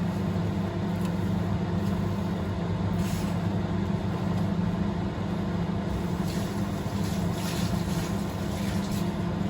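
Steady low mechanical hum, even throughout, with a few faint brief rustles about three seconds in and again between six and eight seconds in.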